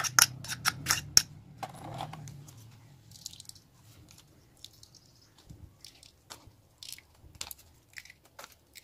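Clicks and taps of a tea strainer and spoon against a bowl as grated onion is pressed in the strainer to squeeze out its juice: a quick run of clicks in the first second and a half, then scattered single taps.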